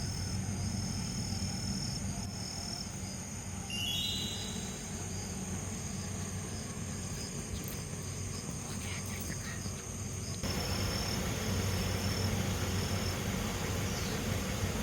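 Insects chirping in forest with repeated high, thin calls over a steady low hum. About two-thirds through, the background noise becomes suddenly louder and fuller.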